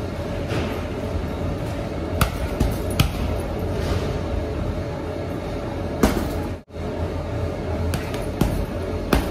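Boxing gloves thudding into a hanging heavy punching bag a few separate times, over steady background music. The sound drops out for a split second about two-thirds of the way through.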